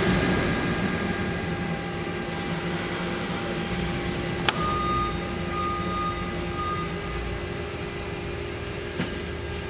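Haas ST-15Y CNC lathe humming steadily with its spindle stopped. About four and a half seconds in, a sharp click as the emergency stop button is pressed; the hiss in the hum then drops away and a high beep sounds on and off for about two seconds. A lighter click near the end.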